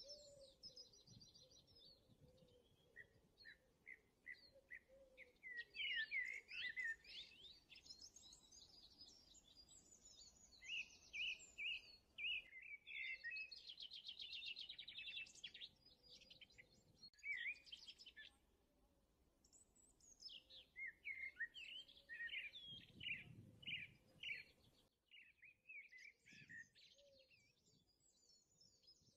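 Songbirds chirping and trilling faintly: quick runs of high notes and short rapid trills with brief pauses between them.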